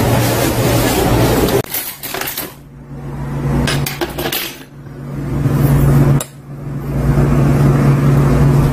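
Metal ladle and spoon clinking against bowls and dishes: a few short knocks, with a steady low hum under them at the start and again for the last few seconds.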